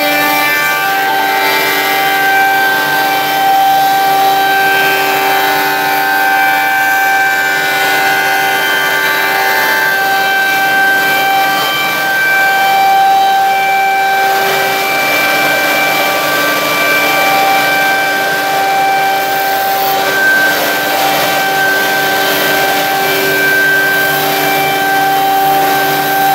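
MX6232 double-sided automatic copy shaper running, its high-speed spindle motors giving a steady multi-tone whine as the cutters shape the curved edge of a wooden blank. A louder hiss of cutting joins in partway through.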